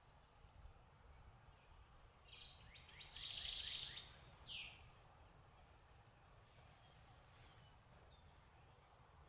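A songbird calls in one quick burst of several short falling notes with a few very high ones, starting about two seconds in and lasting a little over two seconds, over faint outdoor background noise and a steady thin high tone.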